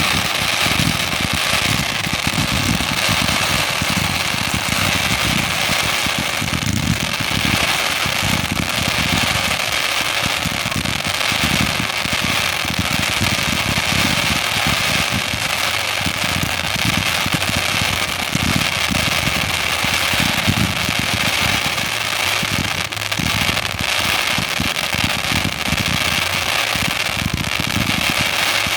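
Fireworks going off in a dense, continuous barrage, with many bursts and crackling overlapping so that no single report stands apart.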